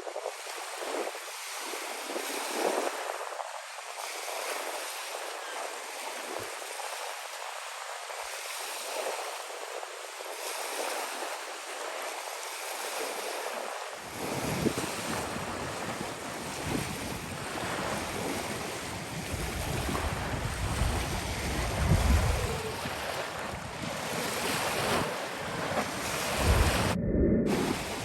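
Sea waves and wind, with wind buffeting the microphone as low rumble from about halfway through.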